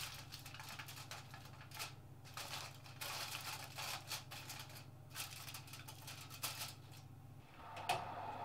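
Aluminium kitchen foil crinkling and rustling irregularly as it is pressed and crimped around the edges of a baking dish.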